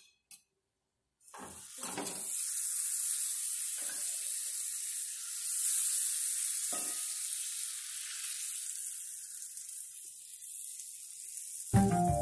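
Butter sizzling in a hot nonstick skillet, a steady hiss starting about a second in, with a few light knocks of utensils. Music comes in at the very end.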